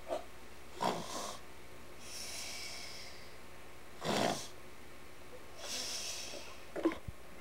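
A boy play-acting snoring: two snores, each a rough inhale about a second and four seconds in, followed by a long breathy exhale.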